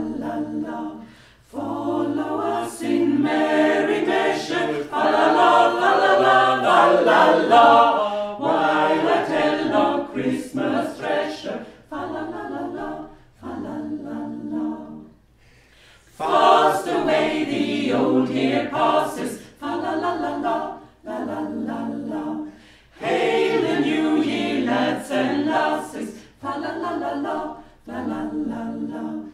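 Small mixed choir of women's and men's voices singing an Advent song together, phrase by phrase, with a short pause for breath about halfway through.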